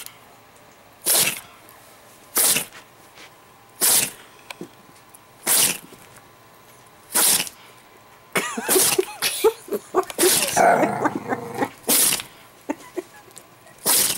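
Italian Greyhound sneezing over and over in a sneeze attack: sharp sneezes about every one and a half seconds, broken up in the middle by a denser jumble of shorter noises.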